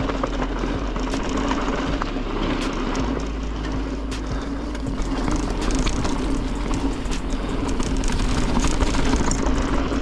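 Mountain bike rolling along a leaf-covered dirt trail: tyre noise over dirt and leaves, with frequent small rattles and knocks from the bike going over bumps, and a steady low rumble of wind on the microphone. It grows louder in the second half as the bike picks up speed.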